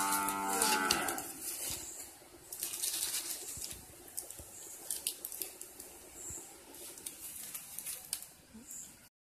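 A cow moos once, one long call that fades out about a second and a half in. After it come scattered light crackles and rustles.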